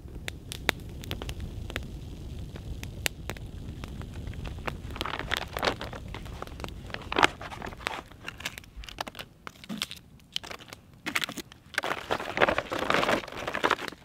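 Campfire crackling with scattered sharp pops. About halfway through it gives way to a clear plastic bag being opened and handled, crinkling loudly near the end.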